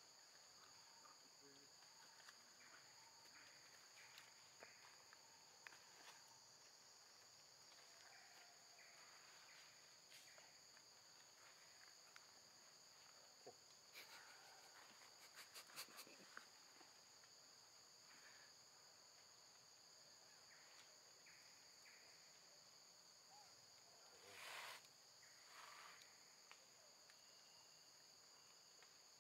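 Faint, steady insect drone: two constant high-pitched tones held without a break, with scattered faint ticks and one short, soft rush of noise about 24 seconds in.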